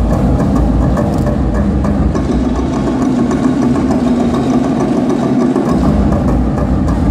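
An engine running steadily at a low, even rumble, with the lowest part of the rumble dropping away briefly near the end.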